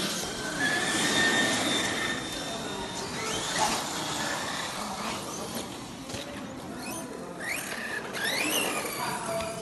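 Electric RC car motors whining: a steady high whine in the first few seconds, then several rising whines as the cars accelerate.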